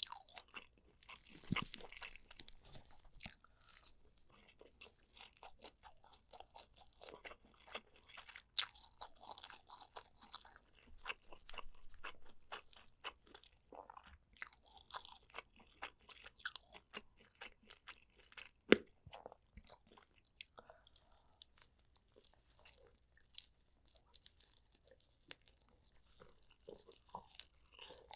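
Close-miked eating: a person chewing and biting into spicy soy-braised pork ribs, a steady run of many short, sharp clicks and smacks. One much louder sharp click comes about two-thirds of the way through.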